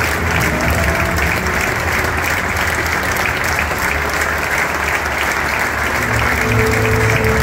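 Large stadium crowd applauding steadily, with a few sustained musical notes coming in near the end.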